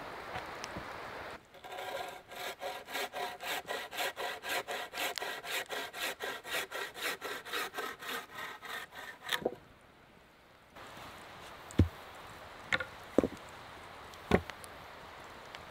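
Frame saw cutting through a log in steady, even back-and-forth strokes for about eight seconds. After a short pause come a few sharp knocks of stones being set against the base of the poles.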